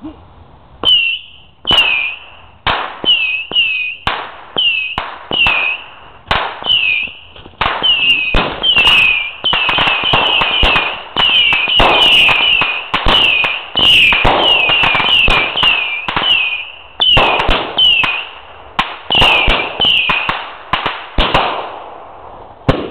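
Consumer aerial fireworks firing in rapid succession: a long string of sharp bangs, up to about two a second, each followed by a short falling high tone. The bangs start about a second in, come thickest through the middle and thin out near the end.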